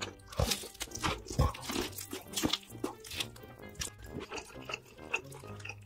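Close-miked crunching and chewing of crispy fried chicken: a run of sharp, crackly crunches as the coating is bitten and chewed, over soft background music.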